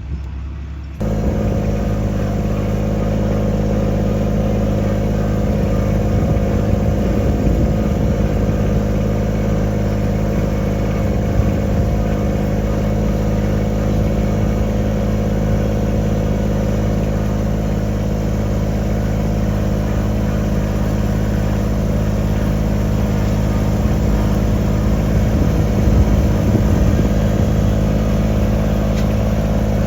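Farm tractor engine running steadily at a constant pace, cutting in abruptly about a second in.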